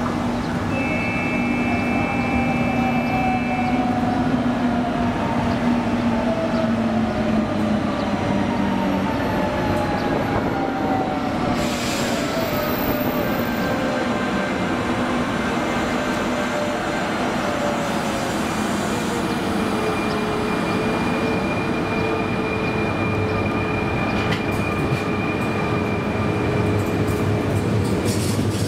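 CP Lisboa 2300/2400 series electric multiple unit running into the station and slowing, its whine falling steadily in pitch as it slows, with some wheel squeal.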